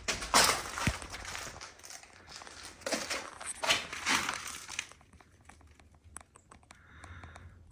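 Rustling, crunching noises in two stretches, then a run of faint light clicks near the end.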